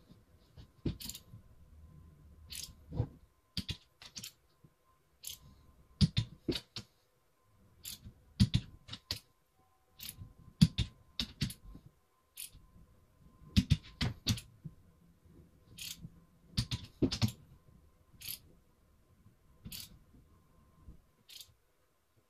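Torque wrench and socket working the cylinder head bolts of a Mercury 500 outboard powerhead: irregular sharp clicks and metallic clinks in small clusters, with short quiet gaps as the wrench moves from bolt to bolt. This is the final torque pass on the head bolts, set to 105 inch-lbs.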